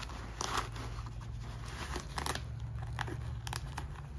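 Straps of a Byrna Shield backpack being folded and pressed onto its nylon webbing and hook-and-loop (Velcro) panels: rustling with a few short, scratchy rips, over a steady low hum.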